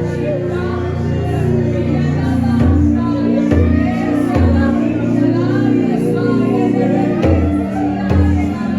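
Gospel worship music: voices singing over held chords with a moving bass line.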